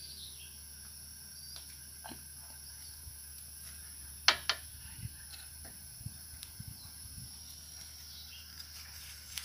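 Light clicks of a metal turner against the batter bowl, the sharpest two in quick succession about four seconds in, over a faint steady hiss.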